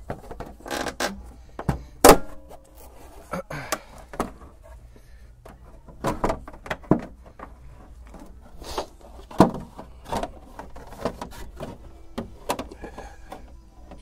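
Scattered knocks, clicks and rattles of hand work on a BMW E36's front end, as the plastic undercarriage cover is unfastened and taken off. The loudest knock comes about two seconds in, another sharp one near the middle.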